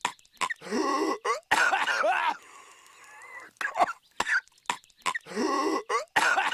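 Patrick Star's cartoon coughing fit: a few short, sharp coughs, then longer rasping, voiced hacks. The same fit repeats about every five seconds.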